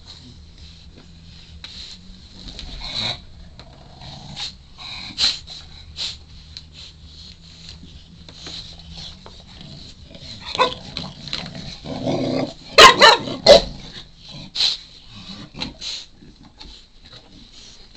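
Shar-pei puppy making a string of short noises in bursts, with a loud cluster of several sharp barks about twelve seconds in; he is begging for a chew treat.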